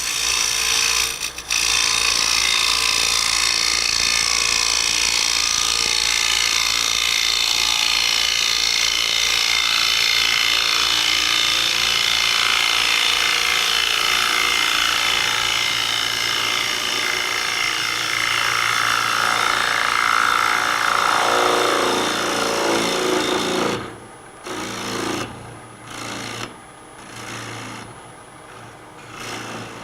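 A turning gouge cutting into the inside of a maple lid spinning on a wood lathe: a steady scraping hiss, a cleanup pass to take out torn fibres. A deeper tone comes in late in the cut, and the cut stops about 24 seconds in, leaving only a few brief soft scrapes.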